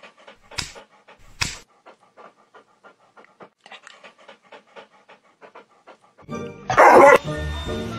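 German Shepherd panting in quick, even breaths, with two louder, sharper breaths in the first second and a half. Loud music starts near the end.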